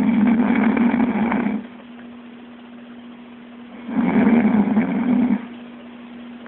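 A chicken snoring: rough, rasping breaths of about a second and a half each, repeating every three seconds or so. Two of them fall here, one at the start and one about four seconds in.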